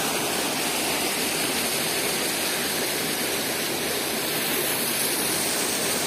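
Stream water rushing steadily over rock slabs in a small forest waterfall cascade.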